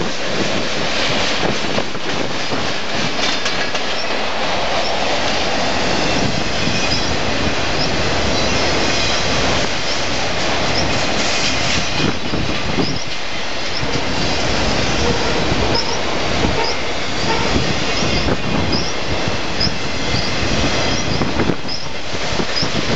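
Freight train cars rolling past, a loud steady rumble and rattle, with wheels clacking over rail joints. Through the second half, short high-pitched wheel squeals keep recurring.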